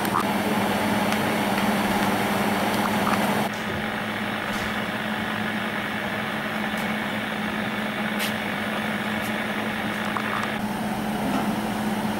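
Steady low mechanical hum over even background noise, with the noise shifting abruptly twice where the footage is cut.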